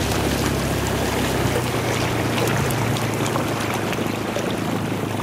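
Small outboard motor running steadily as it pushes an inflatable dinghy, with water rushing along the hull and wind hiss.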